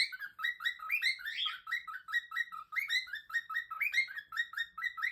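A small bird chirping in a fast, unbroken string of short rising chirps, several a second.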